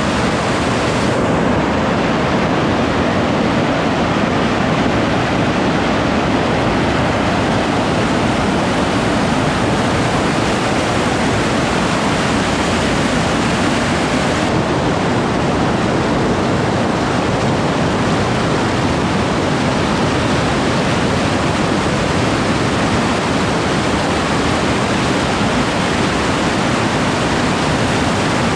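Large river waterfall thundering with a loud, steady roar of falling water.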